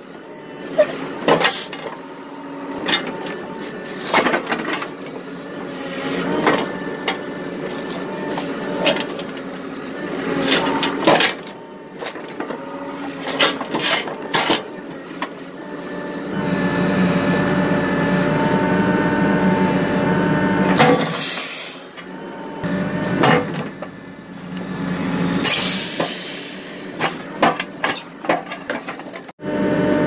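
Backhoe engine running under hydraulic load while its bucket crushes 5-gallon metal cans, with repeated sharp metallic crunches and clanks as the cans fold flat. Midway the engine runs louder and steadier for about five seconds.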